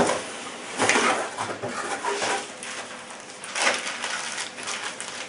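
Cardboard box and packaging rustling and crinkling as an air pistol is lifted out of its box, with a few louder handling bumps and scrapes.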